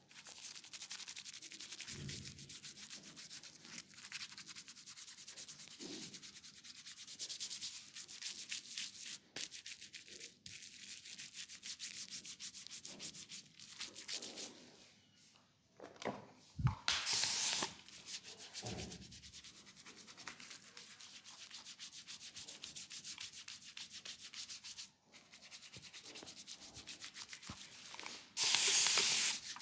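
Rapid, steady rubbing strokes of a leg massage over oiled skin. There is a short pause around the middle and two brief louder rubs, one just after the pause and one near the end.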